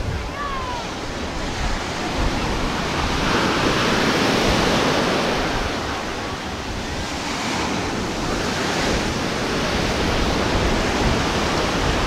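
Ocean surf breaking and washing up the sand in a steady rush, swelling louder about four seconds in and again around eight seconds as waves come in.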